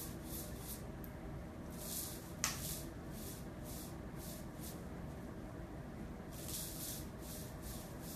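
Hula hoop spinning around an outstretched arm, a faint swish or rub repeating with each turn, with one sharp click about two and a half seconds in.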